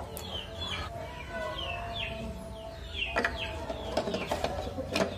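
Birds chirping in short falling notes, repeated every half second or so. A few sharp clicks and knocks come from handling the plastic headlight parts and the LED bulb as it is fitted.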